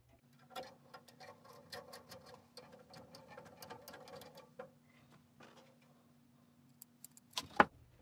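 Screwdriver tip working a metal retaining clip onto the copper water connection of a tankless water heater's mixing valve: a run of small, irregular metallic clicks and scrapes for about four seconds, then a single sharp knock near the end.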